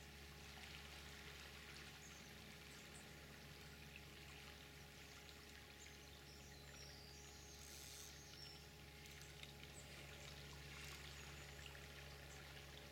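Near silence: the faint, steady rush of a flowing river, with a few faint high chirps about halfway through.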